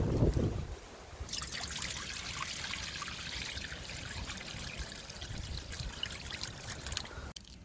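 Liquid poured in a steady stream from a plastic bowl into a metal wok already half full of liquid, splashing and trickling. It starts about a second in and runs for about six seconds.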